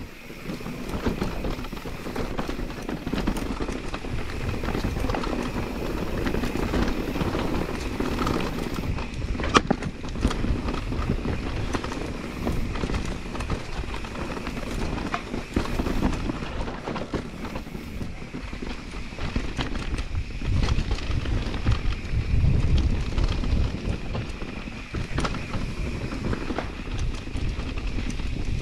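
Electric mountain bike rolling down a rocky trail: tyres crunching over stones and the bike clattering and knocking over rocks in a continuous rough rumble, with a faint steady high whine underneath.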